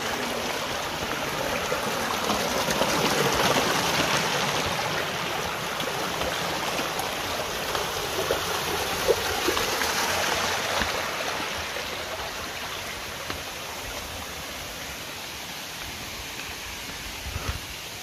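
Shallow mountain stream running and trickling over rocks in small cascades, a steady rush of water that grows quieter over the last few seconds.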